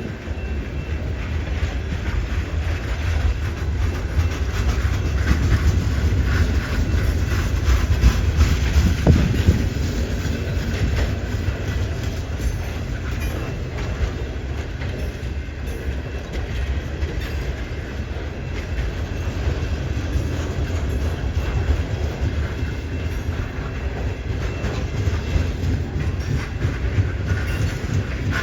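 CN freight train rolling slowly over a junction switch, its wheels clacking in a steady run of clicks over the rail joints, with a constant low rumble.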